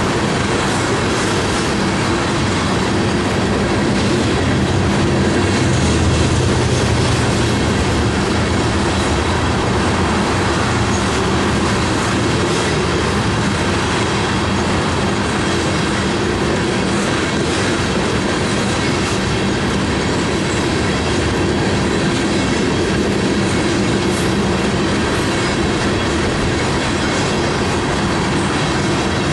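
Coal hopper cars of a unit freight train rolling past at close range: a steady rumble and clatter of steel wheels on rail, with faint steady high squealing tones above it.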